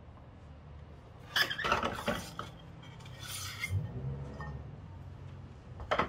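Metal clinking and rattling as the Honda ADV350's rear clutch and driven pulley assembly is pulled off its shaft and set down on a concrete floor: two spells of clatter about a second and three seconds in, and a sharp clank near the end.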